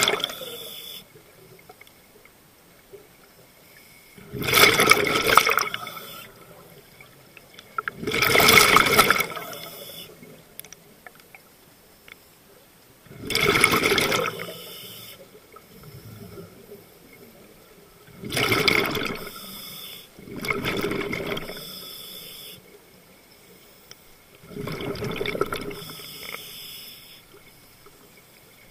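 A scuba diver's regulator exhausting bubbles underwater: a loud rush of bubbles with each exhalation, about six times, every four to five seconds, with quieter stretches between breaths.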